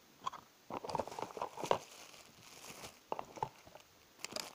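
Plastic packaging crinkling and rustling in irregular bursts with small clicks, as items are handled and unpacked; the busiest stretch comes about a second in, with shorter bursts around three seconds and near the end.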